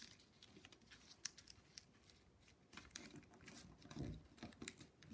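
Faint crisp ticks and rustles of a sheet of colored origami paper being folded and creased by hand, with a soft low bump about four seconds in.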